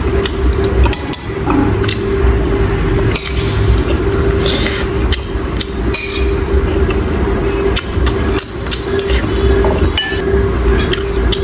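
Spoon or chopsticks clinking and knocking against a bowl during eating, many short irregular clicks over a steady hum.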